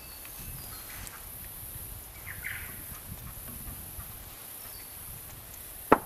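Quiet outdoor background, then a single sharp knock near the end as a roll of tape is picked up off the hive stand.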